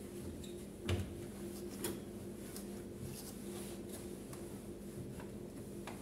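Dry cloth wiping the plastic control panel and front of a Beko front-loading washing machine: soft, faint rubbing strokes, with a sharp knock of the hand against the machine about a second in and a lighter one just before two seconds.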